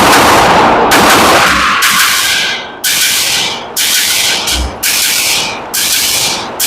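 A string of about nine 9mm pistol shots from a Glock 19 with its standard barrel (no RamJet compensator), fired roughly one a second, each shot followed by a trailing echo.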